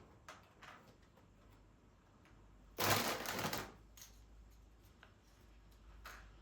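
Household handling sounds: a few light clicks and taps, and one loud noisy burst, less than a second long, about three seconds in.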